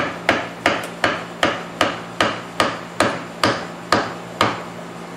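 A mallet tapping repeatedly on a wrench to tighten the 36 mm nut at the back of a mini-mill's column. The light taps are used so the head is not knocked out of tram. There are about a dozen evenly spaced strikes, each with a short metallic ring, that slow a little and stop near the end.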